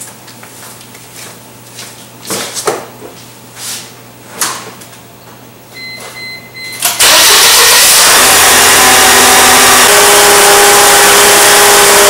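A 2000 Mercedes-Benz C230's supercharged four-cylinder engine is started about seven seconds in and then runs loud and steady at idle. Before it starts there are a few light knocks and a short beep.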